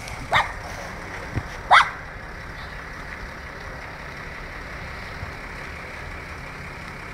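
Steady whine and rush of an air-ambulance helicopter running on the ground, with two short high yelps, each rising in pitch, in the first two seconds.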